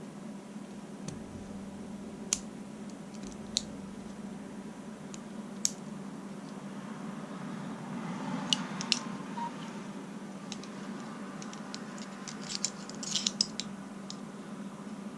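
Leatherman multi-tools being unfolded and handled: a series of sharp, separate metal clicks, with a quick cluster of clicks near the end, over a low steady hum.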